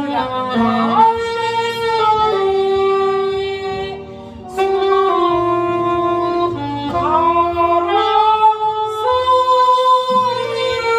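Saxophone playing a slow, sustained melody with held notes and small slides over a backing track, easing off briefly about four seconds in before the next phrase.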